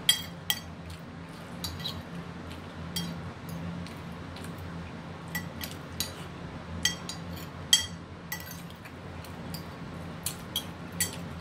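A hand scooping food off a ceramic plate, with about a dozen light clinks on the plate, each ringing briefly, spaced irregularly; a steady low hum runs underneath.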